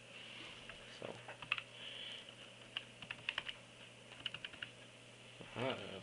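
Keys of a small plastic mini USB keyboard clicking in an irregular run of keystrokes between about one and four and a half seconds in.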